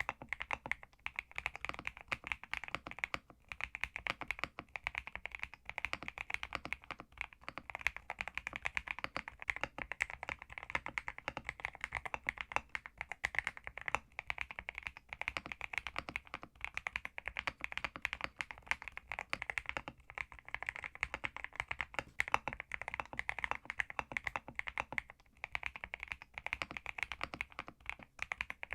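Fast, continuous typing on a Zuoya GMK67 mechanical keyboard with Leobog Graywood V3 switches: a dense run of rapid keystroke clicks and thocks.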